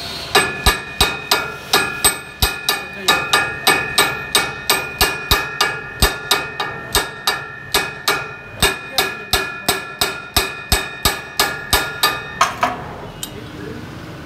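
Hammer blows on steel in a steady rhythm, about three a second, each blow ringing. The hammering stops about twelve seconds in.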